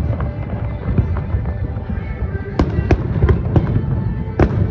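Fireworks going off: a steady low rumble of bursts, then a quick run of about five sharp bangs in the second half.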